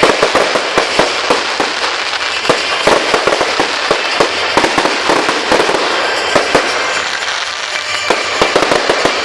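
Fireworks going off in a rapid, unbroken barrage: many sharp bangs and pops over continuous crackling.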